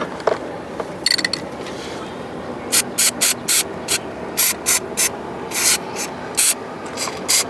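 Aerosol can of spray-on plastic dip coating being sprayed in about a dozen short hissing squirts, beginning about three seconds in, coating wiring connections to waterproof them.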